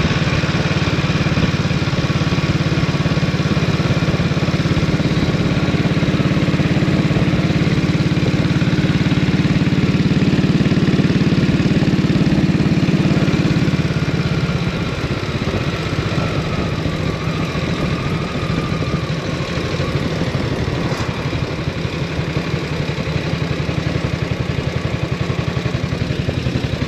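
1932 Norton 16H's 500cc side-valve single-cylinder engine running while the bike rides along in top gear. About halfway through, the deep steady note drops to a lighter, quieter, more open beat as the throttle is eased and the bike slows to about 20 mph.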